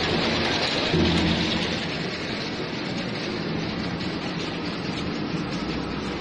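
Potato chip production line machinery running: a steady hiss-like noise with a low motor hum that weakens about two seconds in.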